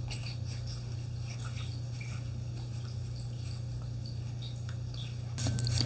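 Faint, scattered clicks and slides of playing cards being handled, over a steady low electrical hum; a louder rustling starts near the end.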